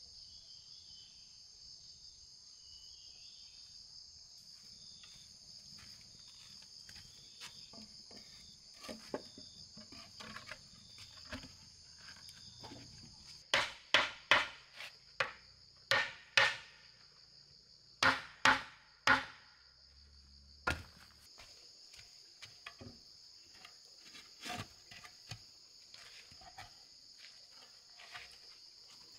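A hammer striking wooden formwork boards, about a dozen sharp blows in quick groups midway through. Under it, a steady high drone of insects.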